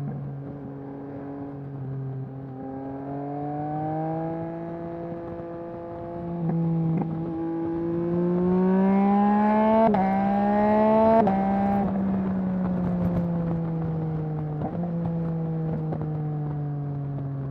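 Motorcycle engine of a 2021 Yamaha MT-09, an inline three-cylinder running a Mivv full-system exhaust, heard under way. Its note rises as it accelerates, broken by quick shifts about seven, ten and eleven seconds in, then falls steadily as the bike rolls off and slows.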